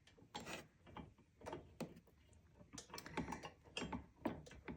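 Light, irregular clicks and small metallic taps from a hex key and bolt being worked by hand while the bolt is threaded in loosely.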